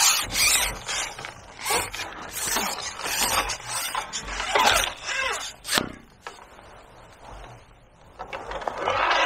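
Fishing reel being wound, its gears clicking and rattling in irregular spurts along with rod-handling noise. It dies down after about six seconds and starts again near the end.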